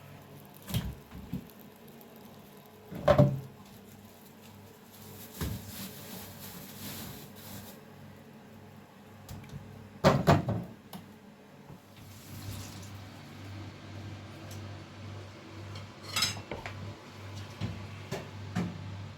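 Kitchen dishes and utensils clinking and knocking now and then, with two louder knocks about 3 and 10 seconds in, over a steady low hum.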